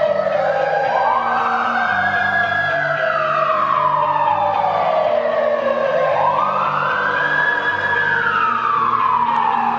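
Fire engine siren wailing, its pitch climbing quickly and then falling slowly over about four seconds, twice.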